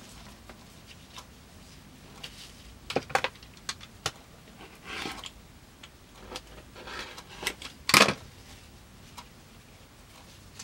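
Handling sounds at a leather workbench: scattered clicks and taps with short rustles as small pieces of leather and a hand tool are picked up and set down, the loudest a sharp click about eight seconds in.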